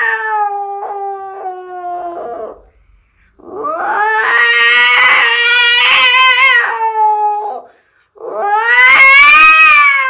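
A man's voice mimicking two cats fighting: three long, drawn-out yowls, the middle one the loudest.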